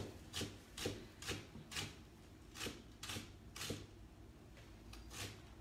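Cleaver chopping Chinese chives on a thick round cutting board, a sharp knock about twice a second, pausing for over a second before one last stroke near the end.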